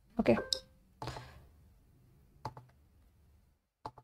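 A few sharp, brief clicks of a computer mouse, one about halfway through and another near the end.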